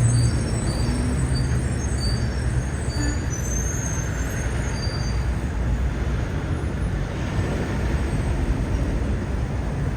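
Steady outdoor rumble and hiss, strongest low down, with faint short high-pitched tones scattered through the first half.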